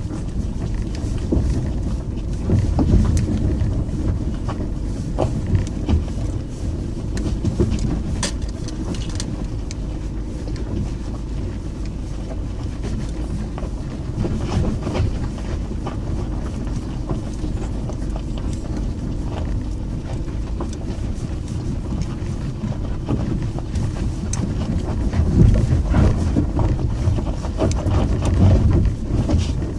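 Inside a car rolling down a steep gravel track: a steady low rumble of tyres on loose gravel and the engine, with scattered knocks of stones and jolts from the rough surface, heavier near the end.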